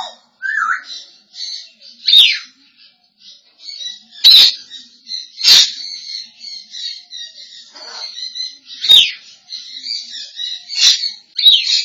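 African grey parrot chirping and chattering in a high voice, broken by about six sharp whistles that each drop quickly in pitch.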